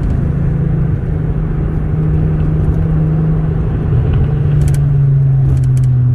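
Volkswagen Jetta GLI's VR6 engine and road noise while driving: a steady drone over a low rumble, its pitch easing slightly lower about four seconds in.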